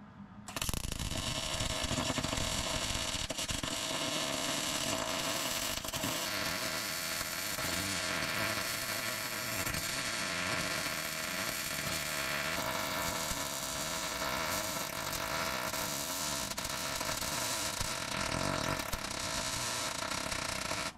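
Wire-feed welding arc crackling steadily on steel, laying one continuous bead. It starts about half a second in and runs unbroken for about twenty seconds.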